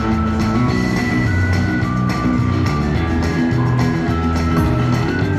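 Buffalo Cash slot machine playing its drum-heavy free-games music, with held electronic tones over it, while the reels spin through a free game.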